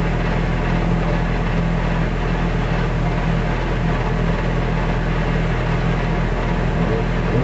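Ford Escort Cosworth WRC's turbocharged four-cylinder rally engine idling steadily inside the stationary car, heard from the cockpit.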